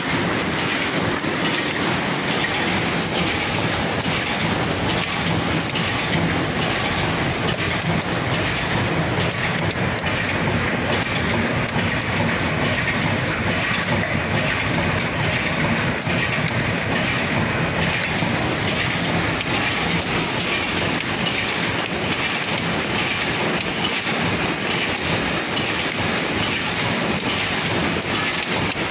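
Paper cup making machines running, a steady mechanical clatter with a fast, even ticking from their moving parts.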